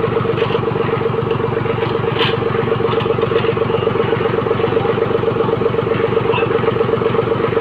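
Old farm tractor's diesel engine idling steadily, with a couple of brief metal knocks about two to three seconds in as the hitch and implement are handled.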